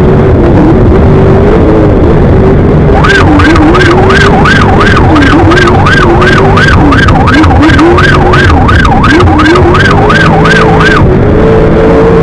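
A siren yelping fast, rising and falling about two and a half times a second. It starts about three seconds in and cuts off about three seconds before the end, over a loud engine running with an uneven, wavering note.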